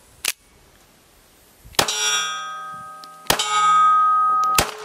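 Ruger LCP Max .380 ACP pistol fired three times, about a second and a half apart, each shot followed by a steel plate target ringing for more than a second. A short sharp knock comes just after the start.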